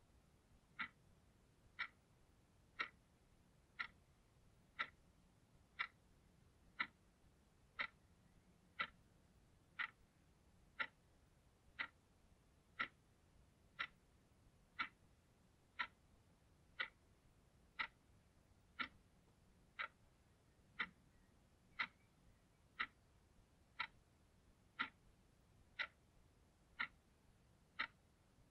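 Blue analog alarm clock ticking, one sharp, even tick each second.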